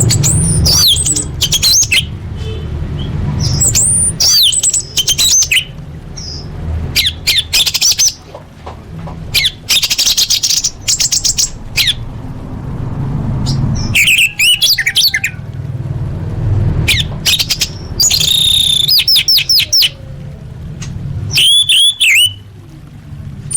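Orange-headed thrush singing a loud, varied song full of mimicked phrases: short bursts of sharp whistles and rapid trills with brief pauses between them, over a low background rumble.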